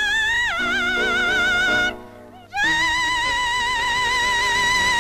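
Soprano singing high notes with vibrato over instrumental accompaniment, in opera style. She breaks off for a breath about two seconds in, then holds one long high note.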